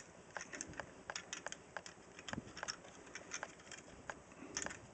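Irregular light plastic clicks and rattles from a plastic Transformers action figure being handled and its parts folded during transformation.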